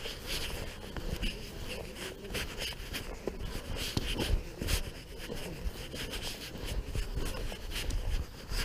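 Footsteps through short grass and heavy breathing from someone walking briskly, with wind rumbling on the microphone.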